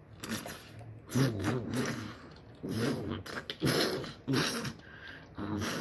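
A person making vocal sound effects with the mouth: several buzzing, hissy bursts with short gaps between them, not words.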